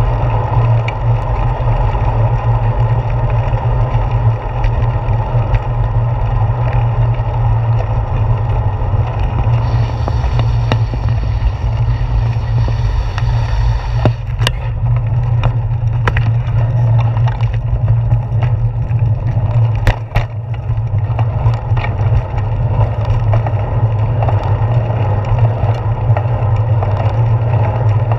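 Bicycle riding along a paved path, heard through a handlebar-mounted GoPro Hero 4: a steady low rumble of wind and road vibration, with a few sharp clicks and knocks partway through.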